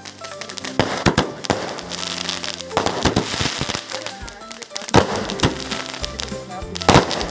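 A 30-shot firework cake firing: a run of sharp bangs and cracks coming at uneven intervals, several a second at times.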